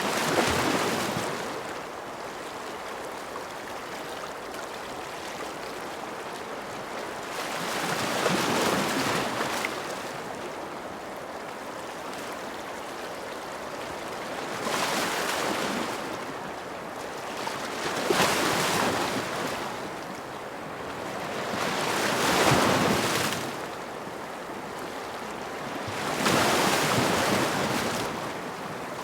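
Ocean waves breaking on a shore, six surges of washing noise a few seconds apart, with a steady hiss of surf between them.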